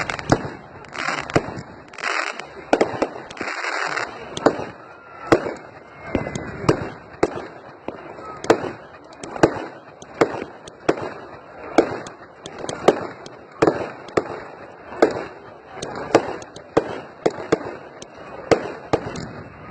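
Firework display: shells bursting in rapid succession, sharp bangs about once or twice a second, with crackle between them.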